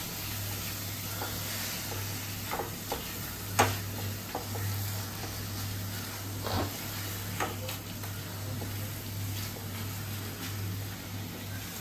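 Silicone spatula stirring and scraping a thick onion, ginger and garlic masala paste in a nonstick kadai, with a soft sizzle as the paste fries down. A few light taps of the spatula sound against the pan, the sharpest about three and a half seconds in.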